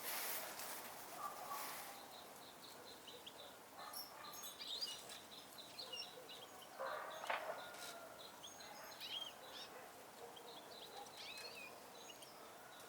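Small songbirds chirping and twittering faintly, many short high calls scattered throughout, with a brief rustle about seven seconds in.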